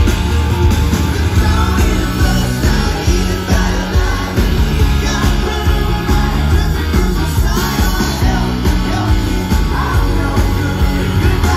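Rock band playing live: drums, electric guitars and bass under a sung lead vocal, loud and steady.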